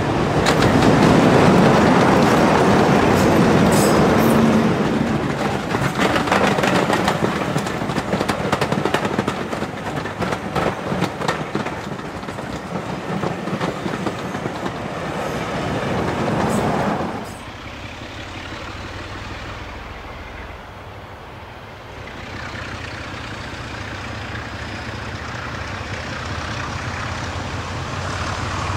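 British Rail Peak class diesel locomotives with Sulzer twin-bank engines, two coupled together, passing close by with a train of coaches: a loud engine drone, then a run of rapid wheel clicks over the rail joints as the coaches go past. About two-thirds of the way through it cuts off suddenly to a quieter, steady engine sound from a three-locomotive Peak train approaching in the distance, slowly growing louder.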